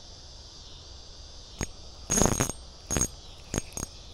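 Spinning reel's drag giving line in short rasping bursts with a metallic ring, about five times from a second and a half in, as a hooked fish pulls on the ultralight rod. A steady insect buzz fades out at the start.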